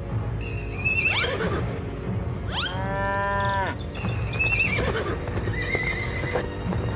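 Cartoon horse whinnying several times over a steady background music track: a rising call about a second in, a longer held call around three seconds, and another near five seconds.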